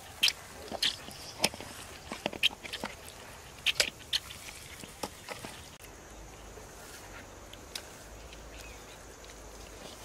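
Wet squelching and squishing of a hand mixing fish pieces into a thick spice marinade in a steel bowl: irregular sharp squishes through the first half, then only a few faint ones.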